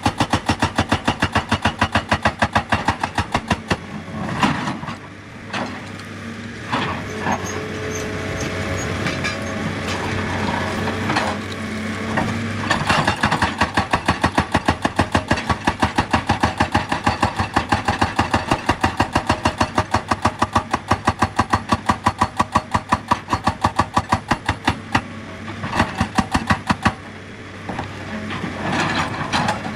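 Excavator-mounted hydraulic rock breaker hammering rock in a fast, even train of blows, stopping briefly a few times, over the machine's running engine.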